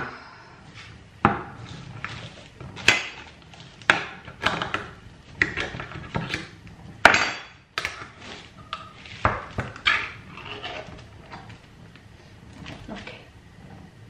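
A metal spoon clinking and knocking against a small tin can and a frying pan in irregular sharp strikes, about a dozen over the stretch.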